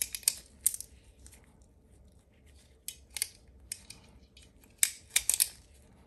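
Sharp metallic clicks and taps from a pistol magazine and cartridges being handled. They come in small clusters, the loudest run of clicks about five seconds in.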